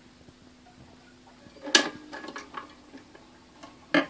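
Bush SRP31c record player's autochanger mechanism cycling: a loud mechanical click about 1.7 s in, a few lighter clicks after it, and another loud clunk near the end. A faint low steady hum lies under the first part.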